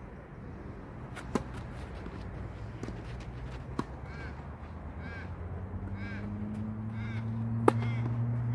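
Tennis ball struck by racquets during a rally: three sharp pocks a couple of seconds apart, the first about a second in and the loudest near the end. A bird calls several times in between, and a low drone grows louder through the second half.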